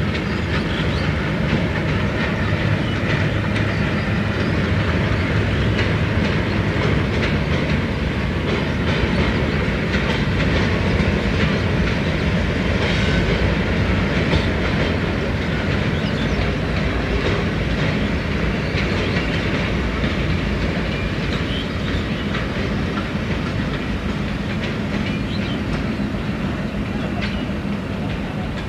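Loud, steady rushing noise with a low rumble and fine crackle.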